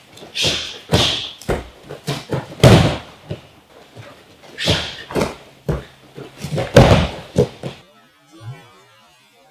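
Irregular thuds and slaps from two fighters drilling takedowns and strikes on padded mats, with the heaviest thuds about three seconds in and again near seven seconds.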